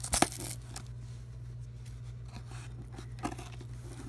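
Cardboard shipping box being worked open with scissors: a loud tearing sound right at the start, then quieter scrapes and crinkles of cardboard and tape, over a steady low hum.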